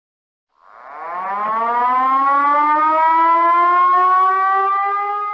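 Siren winding up: one long wailing tone that begins about half a second in and rises slowly in pitch, still sounding at the end.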